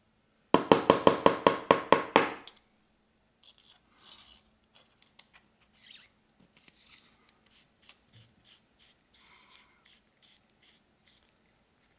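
Engineer SS-02 solder sucker being reassembled: the spring-loaded plunger is pushed into the metal barrel, and its coil spring drags over the barrel's inner threads in a fast, ringing metallic rattle, about eight strikes a second for about two seconds. After that come quieter, irregular clicks and rubbing as the rear cap is threaded back on.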